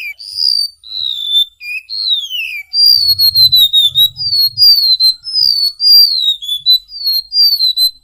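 Golden-bellied gerygone (remetuk laut) singing: high, thin whistled notes that slide downward. A few slow descending whistles come first, then from about three seconds in a quick run of short down-slurred notes.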